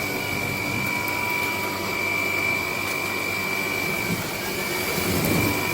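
Dreame Z30 cordless stick vacuum running steadily, a high motor whine over the rush of air.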